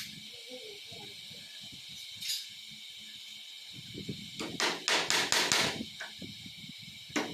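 Claw hammer driving nails through laminated particle board: a single knock a couple of seconds in, then a quick run of about seven strikes about four and a half seconds in.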